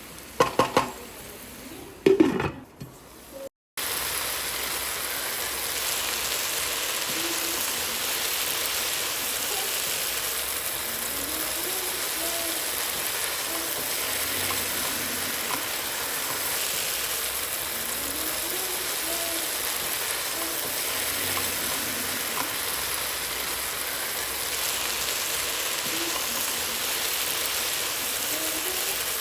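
Okra frying in oil in a pan: a steady sizzle. A few loud knocks sound in the first couple of seconds.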